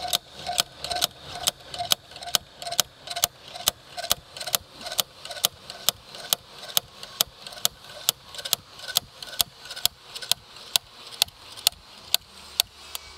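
Ratchet wrench clicking steadily, about two clicks a second, as it turns an injector puller drawing out a seized piezo diesel injector; the clicking stops near the end.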